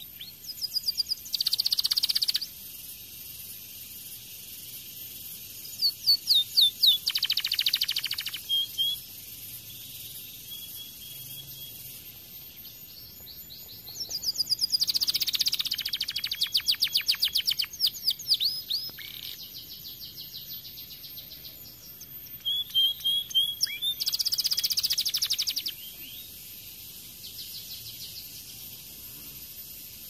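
Domestic canary singing in four loud bursts of fast trills and rolls, each a few seconds long, with a fainter short phrase near the end.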